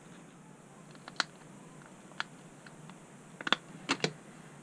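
Light, scattered clicks and taps of small phone parts and a hand tool being handled on a work surface: single clicks about one and two seconds in, then a quick cluster of clicks near the end.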